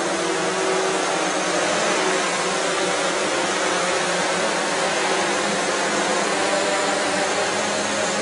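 Several small quadrotors' propellers whirring together in a steady hiss, with faint rotor tones drifting in pitch as they hover and manoeuvre.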